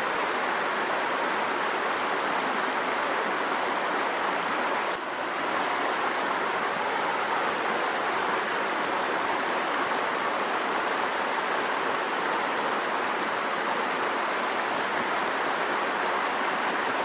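Shallow river water rushing steadily over a stony bed, an even rushing sound that dips briefly about five seconds in.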